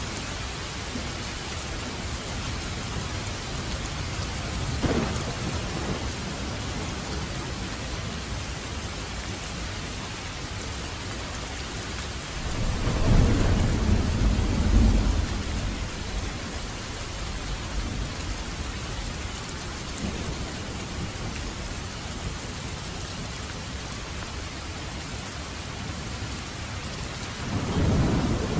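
Steady heavy rain with rolling thunder: a loud low rumble swells about halfway through and fades after a few seconds, a smaller one comes earlier, and another begins near the end.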